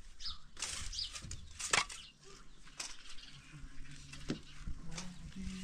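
Metal shovel scraping and scooping over dry gravel and stones, in several separate strokes.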